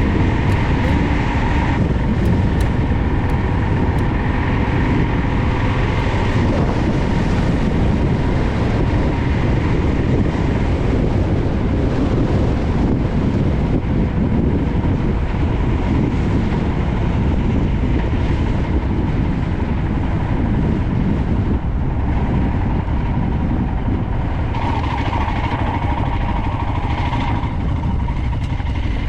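Wind buffeting the microphone of a helmet-top camera over the running single-cylinder engine of a Royal Enfield Himalayan motorcycle on the move.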